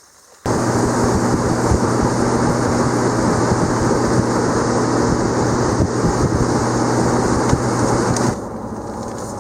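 Boat outboard motor running at speed, with heavy wind rush on the microphone. It cuts in suddenly about half a second in and drops to a quieter, steady vehicle hum near the end.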